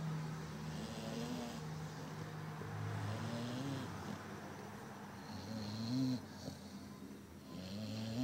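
A Labrador retriever snoring in its sleep, about one snore every two and a half seconds, each rising in pitch as it ends.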